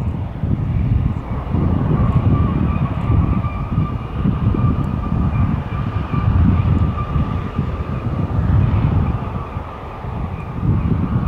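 Aircraft engines running: a steady high whine over a loud, wavering low rumble.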